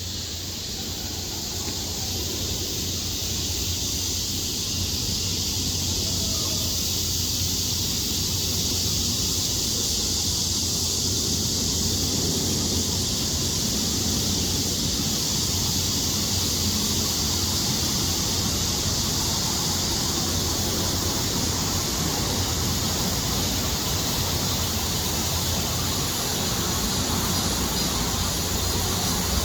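Steady outdoor noise: an even hiss with a low hum underneath, fading in over the first few seconds and then holding level.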